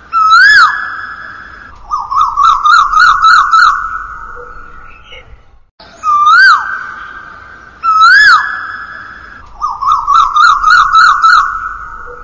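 A whistled bird call repeating in an exact loop. Each phrase is two swooping rising-then-falling whistles, then a rapid run of about six up-and-down notes, each trailing off in a long echo. The phrase plays twice, starting near the beginning and again about eight seconds in.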